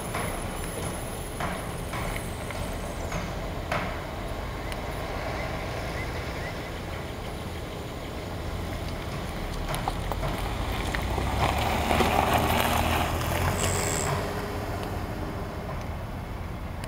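Road traffic: a steady low rumble of vehicles, including a heavy truck, with cars driving past, the nearest loudest about twelve seconds in.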